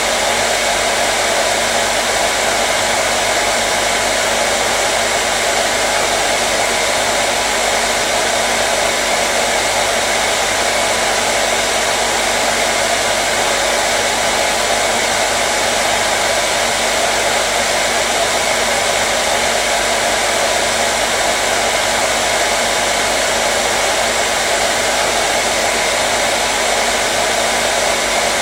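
Hair dryer running continuously, a steady even whoosh of blown air with a faint motor hum underneath.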